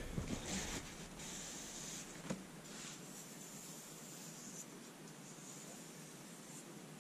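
Faint light rubbing and scratching as a freshly sharpened kitchen knife is handled and its edge tried, with one small tick about two seconds in, then only quiet room tone.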